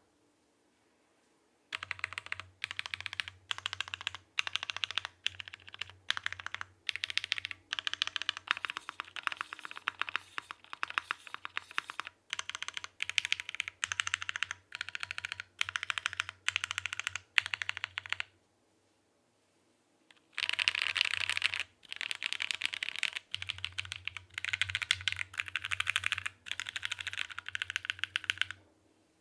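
Typing on a Geonworks F1-8X mechanical keyboard with lubed Gateron Pro Milky Yellow switches, an aluminium plate and GMK keycaps, in quick bursts of keystrokes. The typing stops for about two seconds around two-thirds of the way through, then resumes with a fast, dense flurry.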